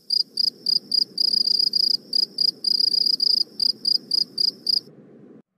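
Crickets chirping in a quick, high pulse of about four or five chirps a second, some running together into short trills, over a low background hiss. The chirping stops near the end and the hiss cuts off suddenly.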